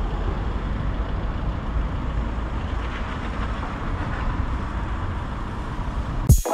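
Steady low rumble of city street traffic, cut off just before the end.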